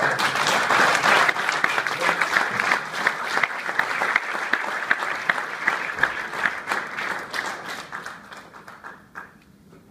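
Audience applause in a conference room, starting suddenly at the end of a talk, loudest at first and then thinning out and dying away about nine seconds in.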